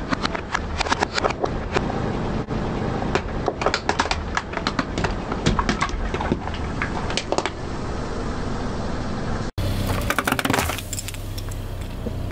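Green plastic toy soldiers and a toy helicopter cracking and snapping under a slowly rolling car tyre, a rapid run of sharp cracks that thins out after about seven seconds.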